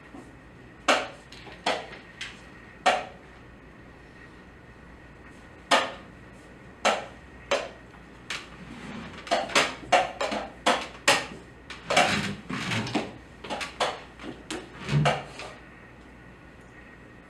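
Wooden chess pieces set down hard on a wooden board and the buttons of a digital chess clock slapped during fast blitz play. The sharp clacks come singly about a second apart at first, then in a quick flurry from about nine to fifteen seconds in.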